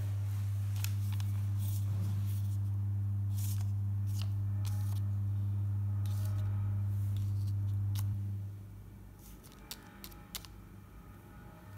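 A steady low electrical hum that fades out about eight seconds in, with light clicks and crinkles from a paper instruction sheet being handled.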